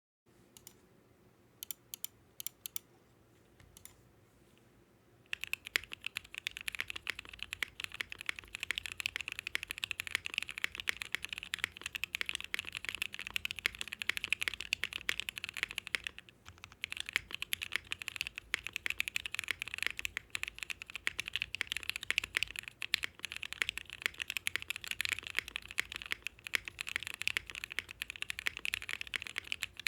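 Bakeneko mechanical keyboard with lubed, filmed Gateron Ink switches in a polycarbonate plate: a few scattered key presses, then from about five seconds in continuous fast typing, with a brief pause around the middle.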